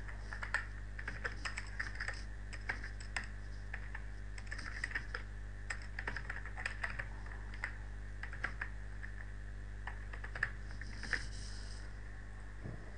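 Typing on a computer keyboard: irregular runs of keystrokes that thin out near the end.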